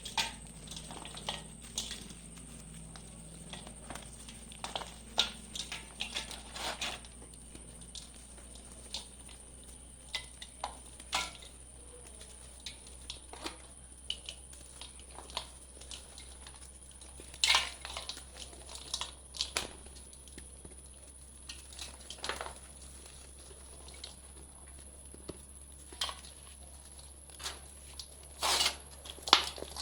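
Dried brown mud shapes crumbling: irregular crisp crunches and crackles, some coming in quick clusters.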